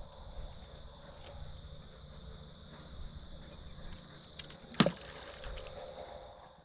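Outdoor background of steady high insect buzzing over a low wind rumble, broken by a single sharp crack a little under five seconds in.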